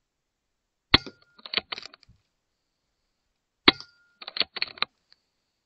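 Airmaks Krait L .22 PCP air rifle fired twice, nearly three seconds apart; each sharp shot is followed about half a second later by a quick run of clicks.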